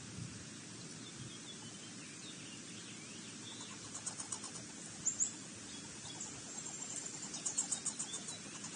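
Wild birds chirping, with short runs of rapid high notes about four seconds in and again near the end, over a steady outdoor hiss.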